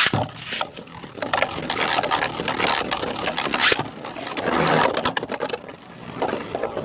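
Two 3D-printed Beyblade spinning tops launched with a sharp snap, then whirring and clashing in the stadium with rapid clicking and rattling impacts.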